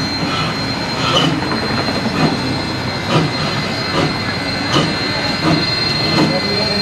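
Steam train running along the track: a steady rumble with a knock about once a second and a thin, steady high-pitched squeal.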